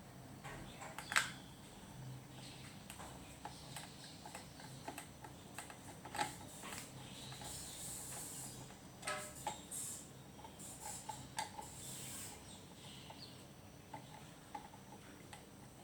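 Scattered light clicks, taps and brief scrapes of small hard parts being handled, with a sharper knock about a second in, over a faint steady low hum.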